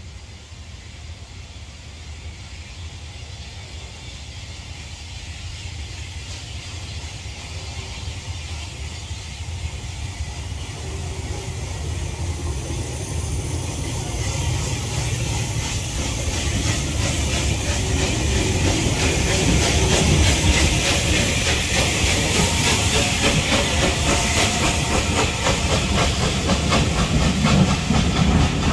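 Bulleid Battle of Britain class steam locomotive working a passenger train, its exhaust beats and hissing steam growing steadily louder as it approaches and passes close by. Near the end the coaches roll past with a clickety-clack of wheels.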